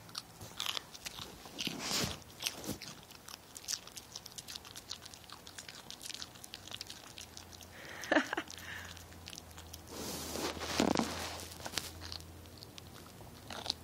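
A small dog biting and chewing a raw sugar snap pea a little at a time: a run of irregular crisp crunches and teeth clicks, with a couple of longer, louder rustling noises about eight and eleven seconds in.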